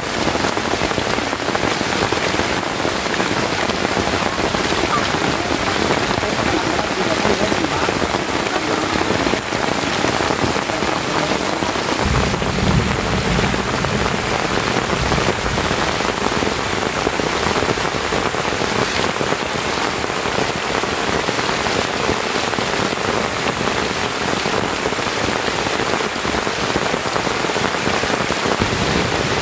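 Heavy rain falling steadily on forest foliage: a dense, even hiss of countless drops on leaves.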